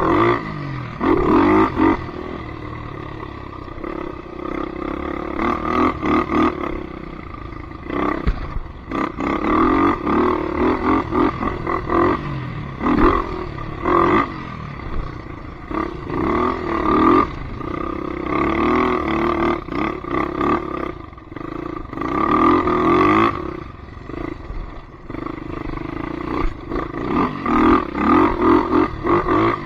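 Polaris Predator 500 ATV's single-cylinder four-stroke engine revving up and dropping back again and again, in loud bursts of a second or two with lower running between them.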